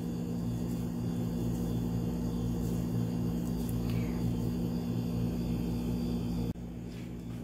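Steady low mechanical hum with a faint throb, like a motor running, which drops suddenly in level about six and a half seconds in and carries on more quietly.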